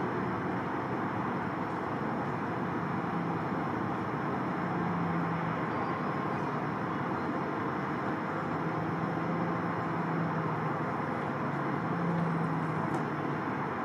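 Steady distant engine rumble of an airport heard from afar, with aircraft taxiing. A faint low drone swells and fades several times.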